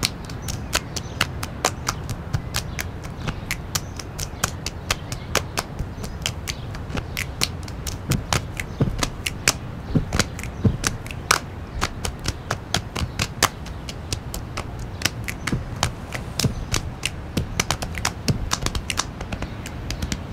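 Scattered finger snaps and taps, several a second at uneven spacing, over a low steady hum.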